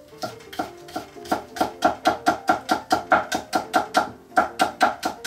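Chef's knife mincing green onion on a wooden cutting board: rapid, even chopping strokes, about four a second, with a short break about four seconds in.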